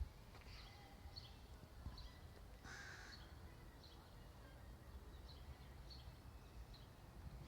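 Faint outdoor ambience with short high bird chirps every half second or so and one louder, harsher bird call about three seconds in, over a low background rumble.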